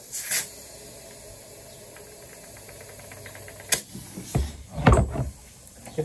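A short blast of compressed air from an air-hose blow gun, then a low steady background with faint rapid ticking, a sharp click a little under four seconds in, and a few dull knocks around the five-second mark as the bike wheel is handled.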